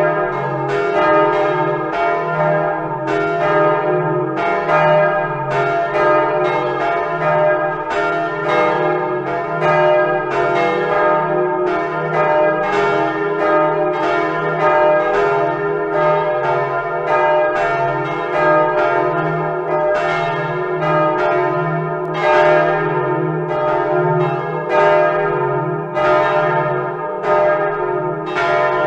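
Simulated peal of the Utrecht Dom tower's swinging church bells, several bells ringing together at once. Their strikes overlap, several a second, each leaving a long ring.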